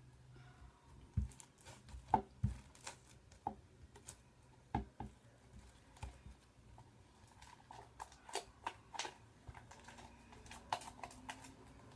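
Hands working homemade glue slime and its container: irregular small clicks and taps, with a few dull thumps in the first few seconds.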